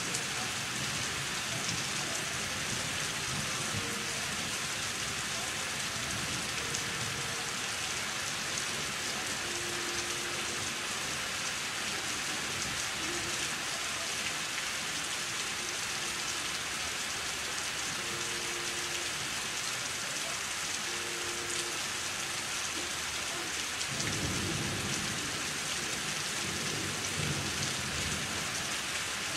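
Thunderstorm rain falling steadily and heavily. A low rumble of thunder rolls in during the last five seconds or so.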